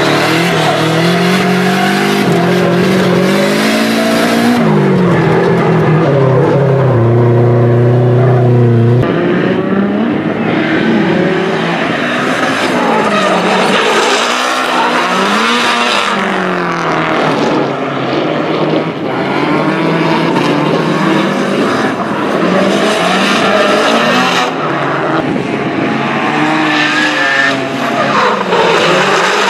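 Nissan S13 drift cars in tandem: engines revving up and falling away, with tyres squealing and skidding. For roughly the first nine seconds it is heard from inside one car's cabin, with clear engine notes held steady for a moment. After that it is heard from trackside, with more tyre noise and the engine notes rising and falling.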